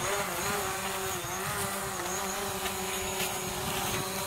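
DJI Mavic Pro quadcopter flying low, its propellers giving a steady whining hum whose pitch wavers slightly over the first couple of seconds, then holds steady.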